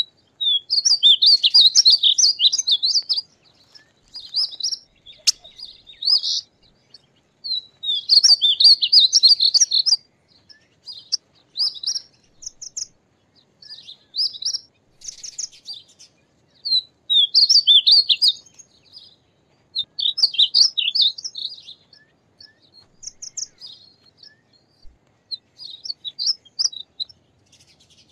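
Painted bunting singing: high, quick warbled phrases of one to two seconds, repeated every few seconds with short pauses and a few shorter snatches between.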